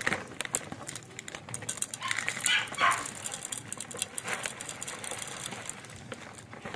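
Dry cat kibble poured from a bag into a ceramic bowl, the pellets clattering and pattering on the glaze in a fast run of clicks. A few short animal calls sound in the background.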